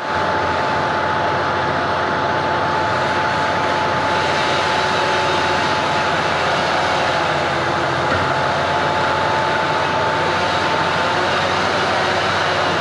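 Heavy diesel machinery running steadily under load, with a thin steady whine that fades out near the end.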